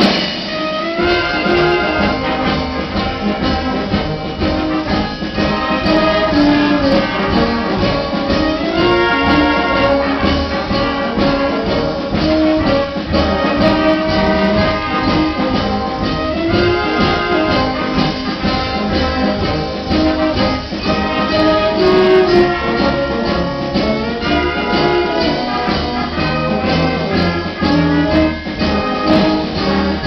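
A live concert band playing, brass such as trombones and trumpets to the fore, with woodwinds and percussion under a steady beat.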